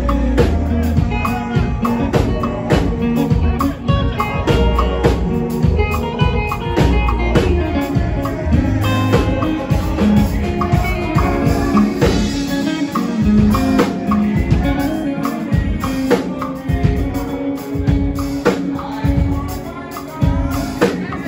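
Live church band jamming in an upbeat highlife groove: electric guitar, keyboard and drum kit over a bass line.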